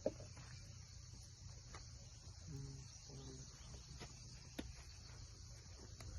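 Faint, steady high-pitched insect chorus, with a few scattered light clicks.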